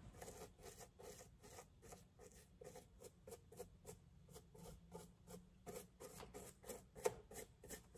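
Faint, quick strokes of a nearly dry chip brush scratching over a latex mask, several strokes a second, dry-brushing highlights onto it. A sharper tap about seven seconds in.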